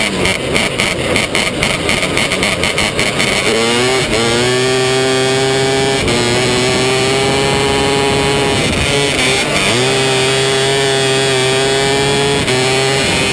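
270-class micro sprint car's motorcycle-based engine racing flat out on a dirt oval, heard from the onboard camera. Rough and choppy for the first few seconds, it then climbs in pitch and holds high revs down the straight, lifting off briefly about two-thirds of the way through and again near the end for the corners.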